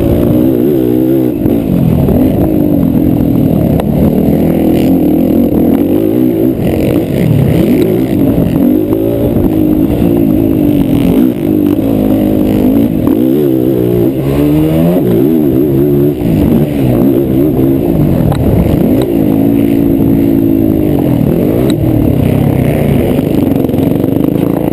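Racing quad (ATV) engine under hard throttle, revving up and dropping back again and again, its pitch climbing and falling every second or two.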